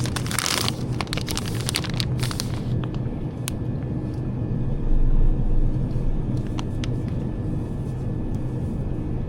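A steady low rumble with a constant hum, with rustling and a few clicks in the first two or three seconds and a brief swell about five seconds in.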